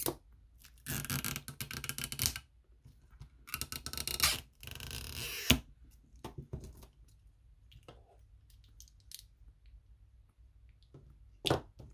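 Stretch-release battery adhesive strips being pulled out from under an iPhone XS Max battery: three scratchy peeling noises of a second or so each in the first half, ending in a sharp click. Scattered light clicks and taps follow as the battery is handled, with one more short scrape near the end.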